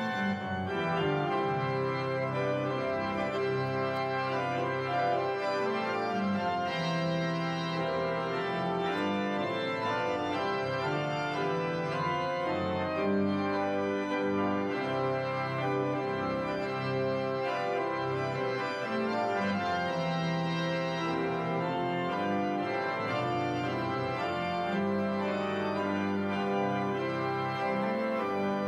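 Church organ playing a postlude: steady, full held chords that change every second or two.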